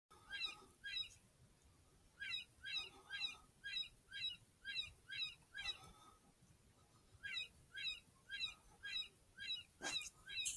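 Electronic predator call playing a prey distress sound: short, high squealing calls repeated about three times a second in bouts, with short pauses between bouts. A single sharp handling thump near the end.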